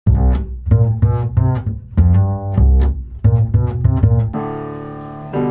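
Opening theme music: a run of plucked, quickly fading notes over a deep bass, giving way to a sustained held chord about four seconds in.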